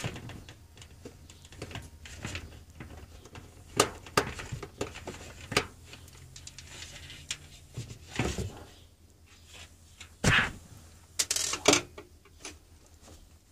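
Scattered clicks, knocks and scrapes of a screwdriver and plastic parts as the screws come out and the plastic insect screen of an RV roof vent is taken down. The loudest knocks come in a cluster near the end. A faint steady low hum runs underneath.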